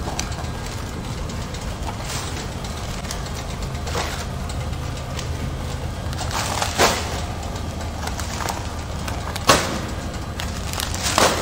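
Vertical form-fill-seal powder packing machine and its outfeed conveyor running with a steady low hum, broken a few times by sharp crinkling clacks from the foil pouches being handled; the loudest come about seven and nine and a half seconds in.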